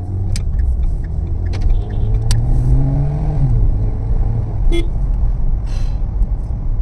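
Car engine and road rumble in city traffic. The engine note rises for a second or so about two seconds in as the car speeds up, with a few sharp clicks over it.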